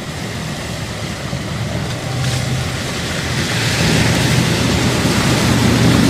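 Mercedes-Benz G-Class SUV driving through a water-filled rut: a steady engine hum under the rush and splash of water, growing louder as the vehicle comes closer.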